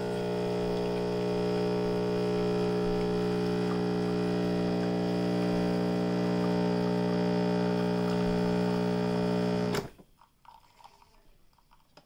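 Calphalon Temp iQ espresso machine's pump humming steadily while pulling an espresso shot, then cutting off suddenly about ten seconds in, followed by a few faint clicks.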